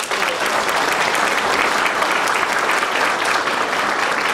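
Audience applauding, many hands clapping together at an even strength.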